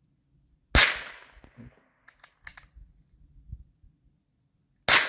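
Two handgun shots about four seconds apart, the second near the end, each a sharp crack that dies away over about a second.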